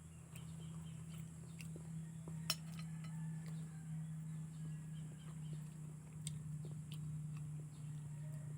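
Occasional light clinks of a spoon against a bowl while eating, with one sharper clink about two and a half seconds in, over a steady low hum.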